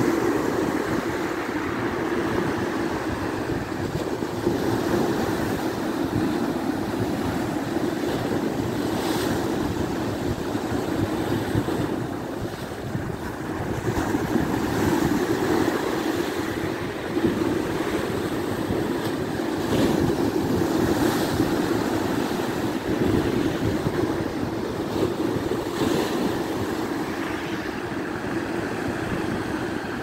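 Sea surf washing onto the shore in a steady wash of noise that swells now and then, with wind buffeting the microphone.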